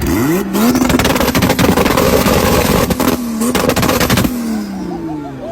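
Tuned performance car engine revved up and held at a steady rev limit while the exhaust crackles with a rapid stream of pops, then the revs fall away near the end.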